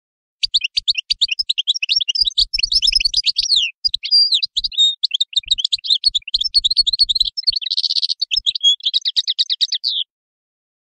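European goldfinch singing: a fast, unbroken run of twittering, tinkling notes, with a buzzier stretch about eight seconds in. The song cuts off abruptly near the end.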